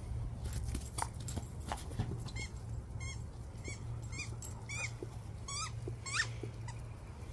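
A dog's squeaky toy ball squeaking as the dog squeezes it in its mouth: about eight short, high squeaks from about two seconds in, each rising and falling in pitch. A steady low rumble runs underneath.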